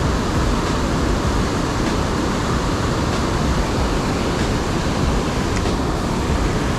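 Steady rushing of fast-flowing river water, an even noise with no change in it.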